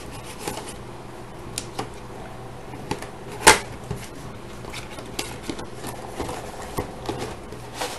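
Cardboard mouse box being handled and opened on a wooden tabletop: scattered light knocks and clicks, with one sharp, much louder snap about three and a half seconds in, over a faint steady hum.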